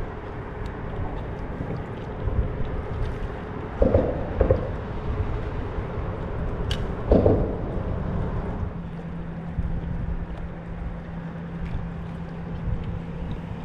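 Wind and water around a kayak, under a faint steady hum that drops lower about two-thirds of the way through. Two dull knocks come close together about four seconds in and one more about seven seconds in, as gear or a hand bumps the hull.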